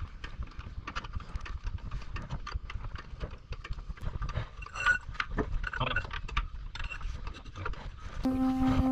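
Rapid, irregular metallic clicks and knocks of hand tools being worked on a car. Background music comes in near the end.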